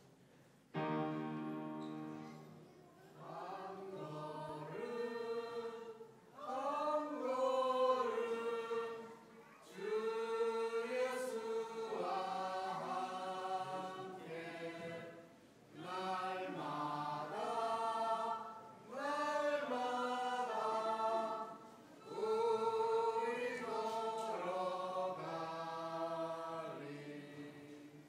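A small church choir of men, women and children singing a hymn together, in sung phrases a few seconds long with short breaks between them.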